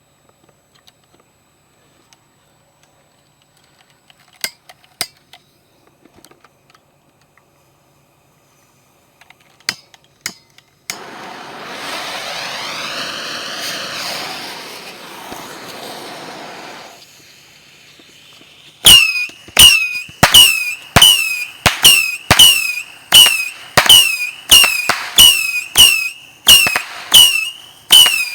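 Consumer firework cake going off: a hiss for several seconds, then a rapid string of loud shots, about two a second, each followed by a short falling whistle.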